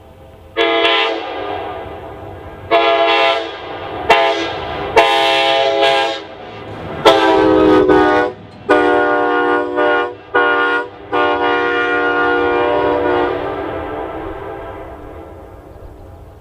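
Multi-chime locomotive air horn blown in a string of short and long blasts, several cut off abruptly, then one long blast that slowly fades away near the end.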